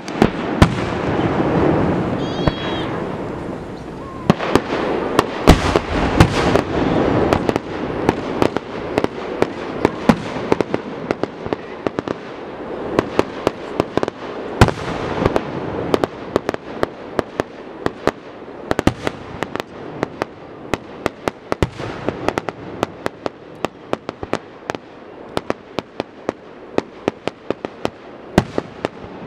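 Fireworks going off: loud booming bursts every few seconds over a dense run of sharp crackling pops.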